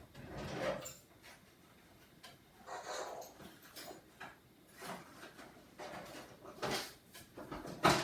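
Rummaging and handling of small objects, several short bursts of rustling and clattering, as repair tools are gathered.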